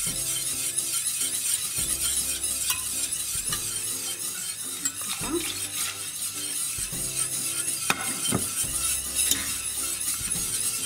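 Wire whisk stirring and scraping steadily around a stainless steel saucepan, beating hot soy milk into a flour-and-margarine roux for béchamel, with a few sharp clicks of metal against the pan.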